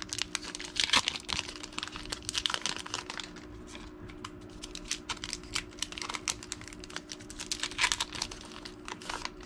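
A trading card booster pack being opened and its cards handled: a dense run of light clicks and snaps as cards are shuffled and flicked, with the pack wrapper crinkling loudly a few times.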